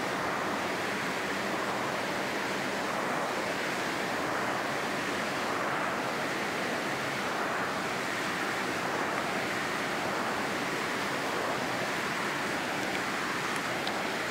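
Steady rushing noise, even in level, with no voices or other distinct sounds.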